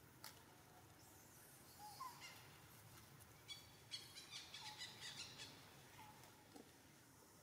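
Faint outdoor ambience with scattered short, high-pitched chirping animal calls, including a quick run of chirps from about three and a half to five and a half seconds in.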